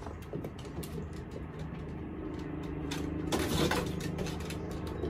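Brittany spaniel's claws clicking and tapping irregularly on a wooden deck as it jumps and lands, with a brief louder scuffle about three and a half seconds in and a steady low hum underneath.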